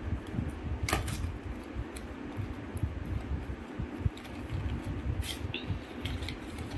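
Small cardboard box being opened by hand: the sleeve slid off and the inner paperboard tray unfolded, with scrapes and a few light clicks of card, two of them about a second in, over a steady low fan hum.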